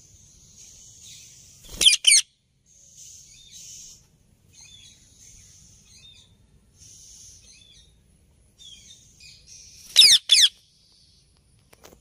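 Alexandrine parakeet giving two loud, harsh calls, each a quick pair of falling notes: one about two seconds in and one near the ten-second mark. Faint high chirping runs underneath.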